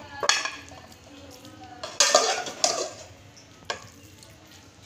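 Metal slotted spatula scraping and scooping cooked rice pulao out of an aluminium pot and onto a plate: a few short scrapes, the loudest about two seconds in, and a small clink a little later.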